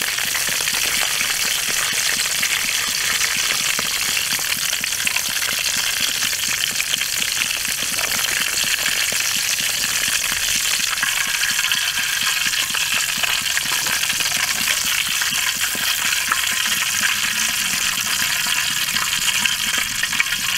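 Pieces of meat deep-frying in hot oil in a steel wok, sizzling steadily.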